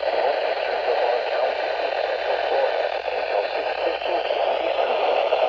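Radio static: a steady hiss of noise from a radio receiver, with no clear voice or alert tones through it.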